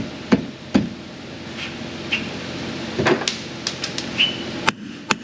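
Steel tools knocking on a truck's upper control arm as it is pried and tapped down over its mounting studs: about ten sharp metallic knocks at irregular intervals, most in the second half, with a few faint short squeaks between them.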